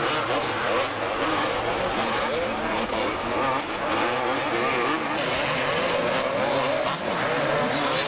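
Several 250cc two-stroke motocross bikes racing, their engines revving up and down as the riders climb and corner.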